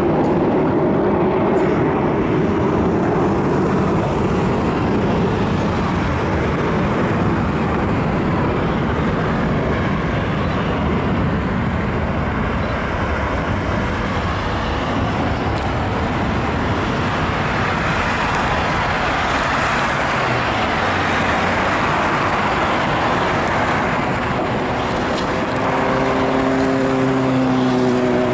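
Steady roar of road traffic, with the jet engines of an approaching Boeing 777-200 on final approach mixed in. Near the end, a few steady hums slide slightly lower in pitch.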